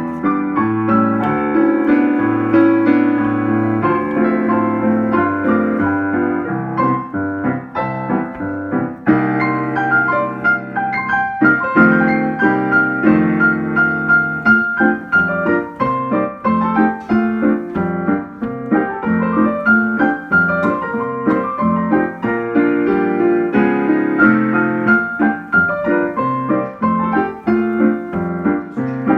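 Piano music: many quick notes over chords and a bass line, played without pause.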